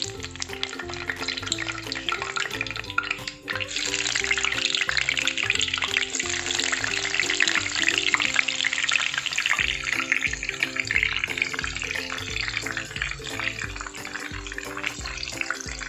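Pieces of milkfish frying in hot oil in a wok, a dense crackling sizzle that grows much louder about three and a half seconds in, while more pieces are added to the oil. Background music with a bass line plays underneath.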